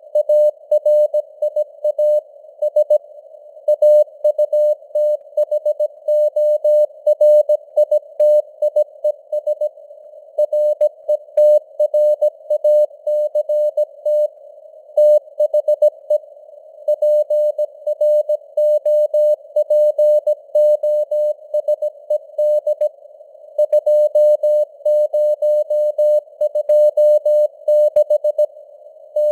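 Morse code (CW) sent at 17 words per minute: a single steady-pitched tone keyed on and off in dots and dashes, with short pauses between words. It sits in simulated radio hiss, and its signal strength slowly rises and falls (QSB fading).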